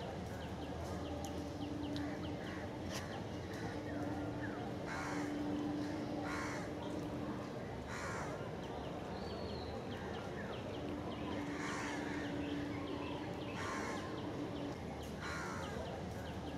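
Crows cawing repeatedly, a harsh call every second or two, with fainter chirps of smaller birds. A low steady hum comes and goes underneath.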